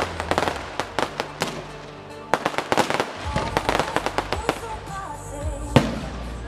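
Fireworks display: rapid crackling and bangs of bursting shells, with music playing. The cracks are densest in the first three seconds, thin out as the music comes forward, and one loud bang comes near the end.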